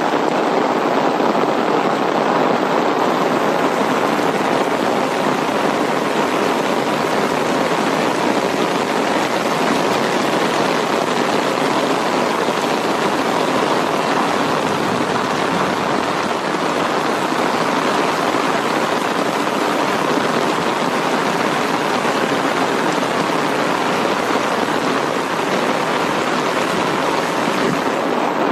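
Medium-to-heavy rain falling steadily, an even, unbroken hiss.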